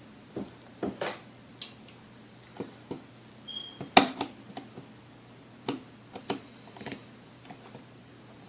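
Scattered light metal clicks and clinks of tools and mixer parts being handled during disassembly of a Hamilton Beach Model D mixer, with a brief squeak and then one sharp knock about four seconds in.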